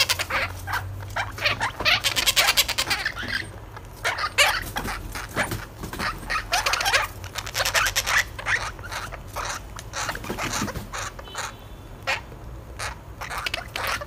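A crowd of parrot chicks calling together: many short, overlapping chirping calls with no pause, the begging chatter of a large brood.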